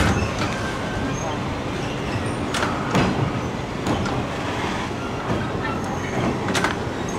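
Passenger train running on the railway, heard from on board: a steady rumble with a few sharp clacks of the wheels over the rail joints.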